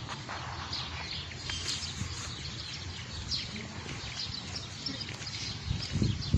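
Birds chirping, short scattered calls over a low outdoor background hiss.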